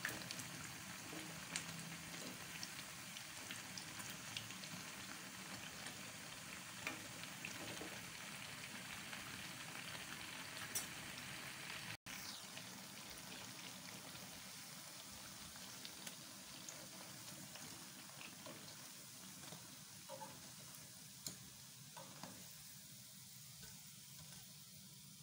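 Bakwan (vegetable fritters) deep-frying in hot cooking oil in a wok: a steady sizzle full of small crackles, with a few clicks from a metal spatula. The sizzle dies down near the end as the fritters are lifted out of the oil.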